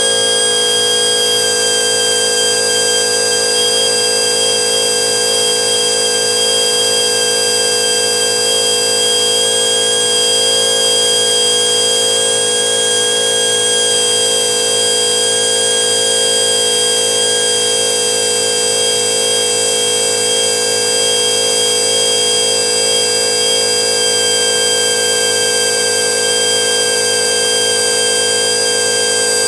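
Pneumatic pencil die grinder running loud and steady with a high-pitched whine, its small stone grinding the hardened jaws of a turning Logan three-jaw chuck to true up the bell-mouthed jaws.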